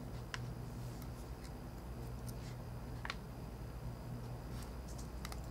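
Faint clicks of a small screwdriver and tiny phone screws being handled, two plainer ones about a third of a second in and about three seconds in, over a steady low hum.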